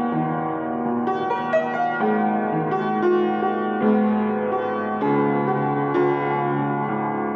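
Piano music: a slow melody played over held chords.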